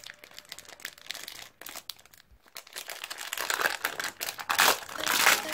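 Thin plastic wrapper crinkling and crackling as it is pulled off a 4x4 speed cube, getting louder in the second half.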